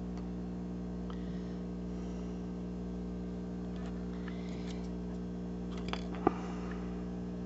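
Steady low electrical hum under faint clicks and taps of a small plastic model and a paintbrush being picked up and handled at a table, with one sharp click a little over six seconds in.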